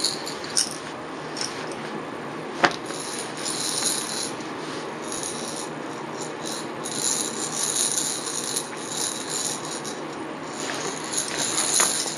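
Baby's plastic hand rattles shaken in irregular bursts of rattling as she waves her arms, with one sharp knock about two and a half seconds in.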